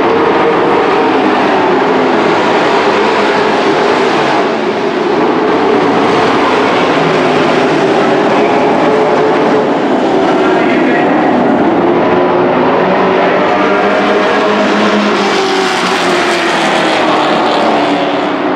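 A field of dirt-track race trucks running at racing speed: several engines overlap into one loud, continuous sound whose pitch keeps rising and falling.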